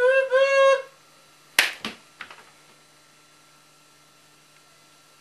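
A person's voice making two short pitched 'boop, boop' beeps, mimicking a machine signal, followed about a second and a half later by a sharp click and a few softer clicks. A faint steady hum is left after that.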